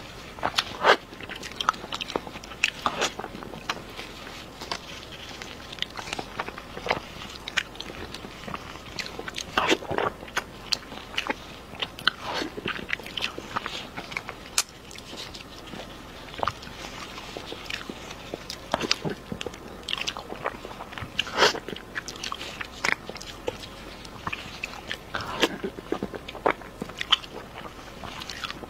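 Close-miked eating sounds: irregular biting, chewing and wet smacking of sauce-glazed food, with sharper crunchy bites now and then.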